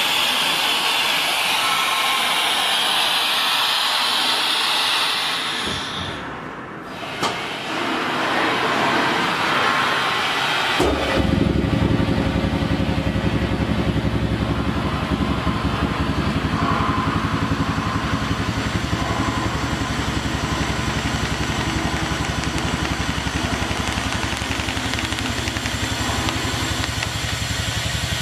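Vacuum membrane press: a rushing hiss of air that fades out after about six seconds. About eleven seconds in, the press's vacuum pump starts and runs steadily with a low, even hum, drawing the membrane down over the panel on the table.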